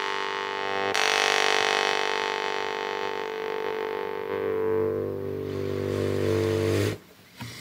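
Yuriy Vashkovych drymba (Ukrainian jaw harp) with a soft, thin tongue, plucked once about a second in. Its low drone rings on with a stack of overtones and a long sustain, the high overtones fading first, then it stops short near the end.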